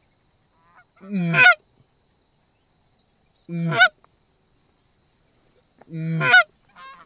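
Three loud Canada goose honks about two and a half seconds apart, each breaking from a low note up to a high one.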